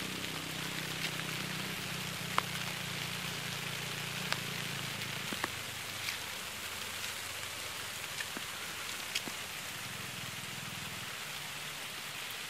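Light rain beginning to fall: a steady, even hiss of rain, with a few single drops ticking sharply nearby now and then. A faint low hum runs underneath in the first half and returns briefly near the end.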